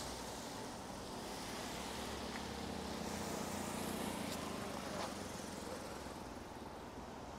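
A car driving past on a wet street, growing louder to a peak in the middle and then easing off, over a steady hiss of falling rain.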